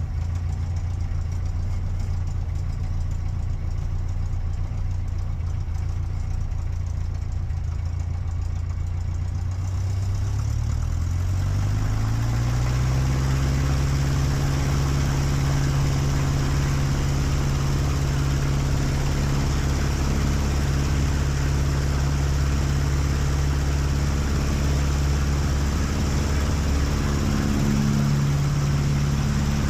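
Aeronca 11AC Chief's Continental A-65 four-cylinder engine running at low power, then throttled up about ten seconds in: its pitch climbs over a few seconds and holds steady and louder, with rushing air noise, as full power is applied for the takeoff.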